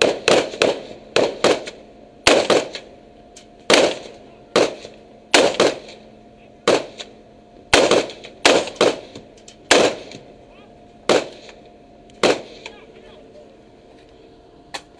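Rifle fire: about twenty single shots fired one at a time at an uneven pace, each a loud sharp crack with a short echo, spacing out and stopping near the end, over a faint steady hum.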